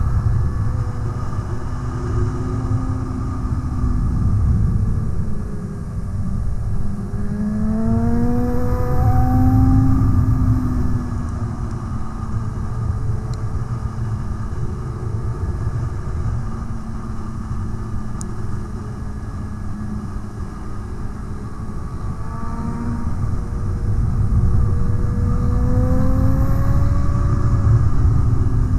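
Sportbike engine heard from the bike itself under heavy wind rush. The revs climb about a quarter of the way in, settle, and climb again near the end.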